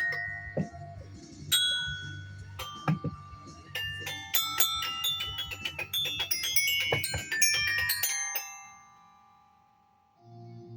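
Tuned mallet percussion played in quick, struck runs of bright ringing notes over a steady low hum. About eight seconds in the playing stops and the last note rings on and fades away. A brief low-pitched sound follows near the end.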